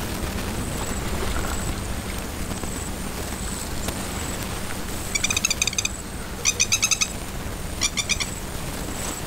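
A bird calling in three short bursts of rapid, repeated notes in the second half, over a steady low background rumble.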